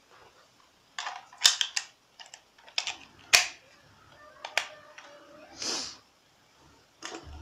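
A run of sharp plastic clicks and knocks from AA batteries being fitted into a toy RC transmitter's battery compartment, bunched between about one and three and a half seconds in, with a few lighter clicks and a short hiss later.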